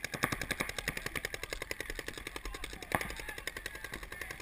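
Paintball markers firing rapid strings of shots, more than ten sharp pops a second, with one louder pop about three seconds in.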